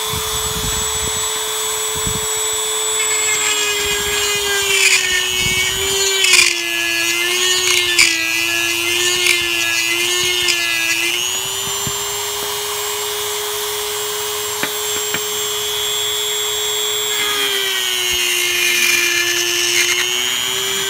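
Dremel rotary tool with a deburring bit switches on and runs at a steady high whine. Twice its pitch sags and wavers, with scraping and clicking, while the bit is pressed into the socket of a vintage Ever Ready C40 shaving brush handle to grind out the remains of the old knot.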